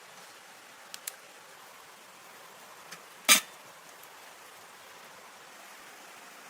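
A single sharp knock about three seconds in, preceded by a few faint clicks, over a steady background hiss.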